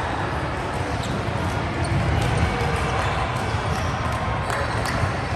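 Indoor volleyball game sounds in a sports hall: a steady wash of players' voices and court noise, with many short sharp squeaks and taps scattered throughout.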